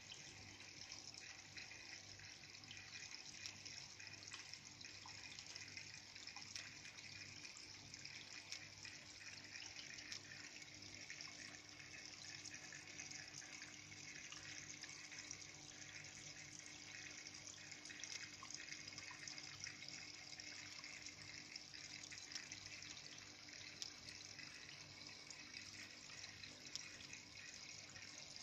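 Faint, steady trickle of running water in a paludarium, with a steady low hum beneath it.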